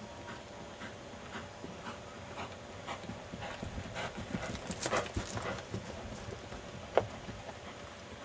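Hoofbeats of a Quarter Horse gelding circling at a lope on dry pasture ground, a steady rhythm of about two strides a second that grows louder as the horse passes close, about four to five seconds in. A single sharp click near the end.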